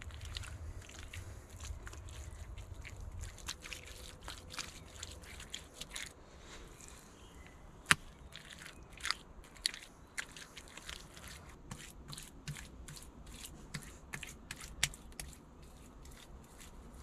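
Bare hands smoothing and working wet mud plaster over a mud fireplace, a run of small gritty scrapes, crackles and clicks, with one sharp click about eight seconds in.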